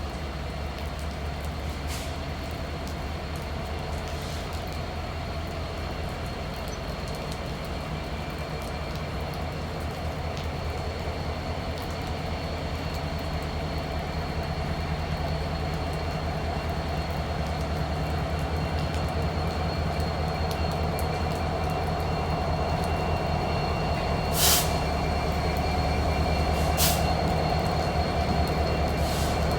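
Diesel freight train approaching, its locomotive rumble growing slowly louder, with a thin steady wheel squeal. Two sharp clicks come near the end.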